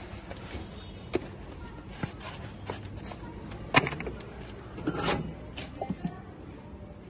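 Scattered clicks and knocks of a drink vendor handling his utensils: a steel spoon in a plastic tumbler and a plastic spice jar on the cart's counter. The loudest knock comes about halfway through, followed by a quick cluster of smaller clicks.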